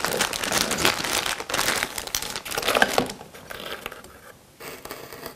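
Small clear plastic bag crinkling as it is handled, loudest over the first three seconds, then dying down, with a short burst of crinkling again near the end.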